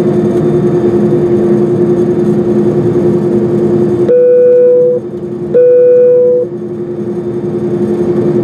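Steady drone of an airliner on the ground before takeoff, a hum with one held low tone. About halfway through come two loud, steady tones, each just under a second long and about half a second apart.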